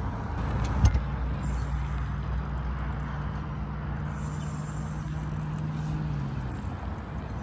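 A motor running with a steady low hum that stops about six seconds in, and one sharp knock about a second in.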